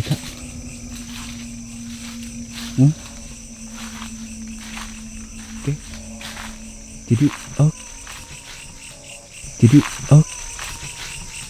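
Crickets and other night insects chirping steadily, with a few short low thumps at irregular intervals, the loudest two close together near the end.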